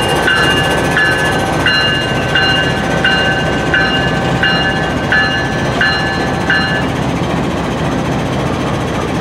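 A railroad bell ringing in a steady rhythm, about three strikes every two seconds, stopping about seven seconds in. Under it runs the continuous rumble of a diesel locomotive moving past on the track.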